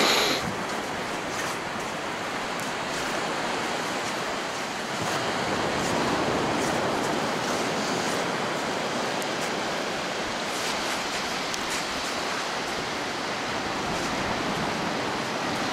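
Surf washing onto a sand beach, a steady rush of breaking waves that swells a little about five seconds in.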